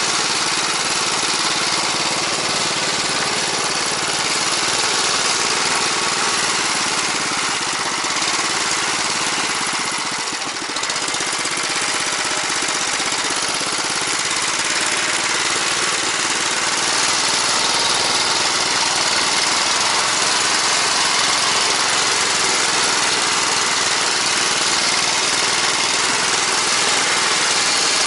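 Single-cylinder four-stroke engine of a Bars Sledopyt motorized snow tow running steadily as it pulls along a snowy trail, dipping briefly about ten seconds in and running a little louder in the second half.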